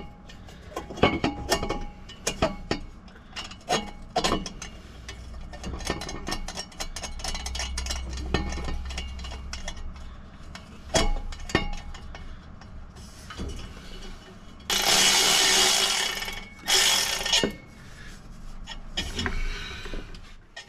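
Steel exhaust tubing clanking and knocking as it is handled and fitted into place, in many irregular knocks and clinks. Two loud hissing bursts come about two-thirds of the way through, the first about a second and a half long, the second shorter.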